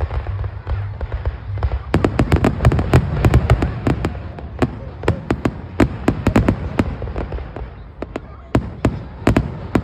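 Aerial fireworks exploding: a rapid barrage of sharp cracks over deep booms starts about two seconds in, then thins to a few scattered bangs near the end.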